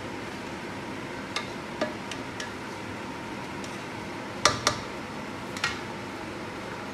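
Spatula levelling rice in a stone-coated pot, with several light clicks of the spatula against the pot and two sharper taps close together about halfway through, over a steady background hiss.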